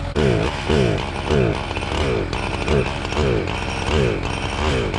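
Husqvarna 357 XP two-stroke chainsaw, run for the first time since a tune-up kit was fitted. Its engine spins up and falls away in pitch over and over, about every half second.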